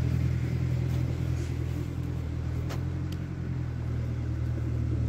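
A tractor engine running steadily at idle, a constant low hum.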